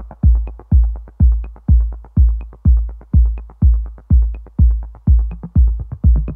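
Background electronic dance music: a heavy kick drum about twice a second with light ticks between the beats.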